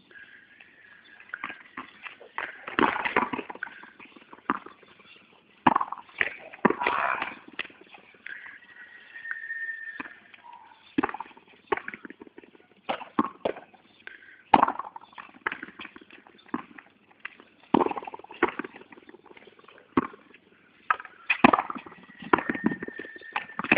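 Frontón ball knocking against the court wall and being hit back, sharp irregular knocks every second or two.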